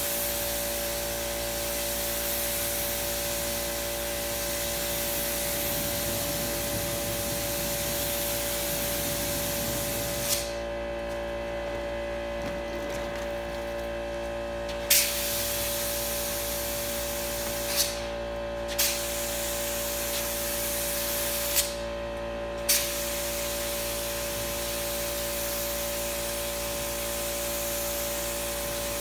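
Gravity-feed spray gun spraying finish onto a wooden panel door: a steady hiss of air and atomised finish. The hiss stops for about four seconds a third of the way in, then twice more briefly as the trigger is released, with a sharp click at the stops and restarts. A steady hum runs underneath throughout.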